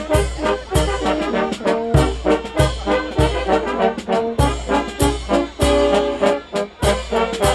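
Fanfare band playing a march in the street: brass tones over a steady bass-drum beat with sharp drum or cymbal strokes.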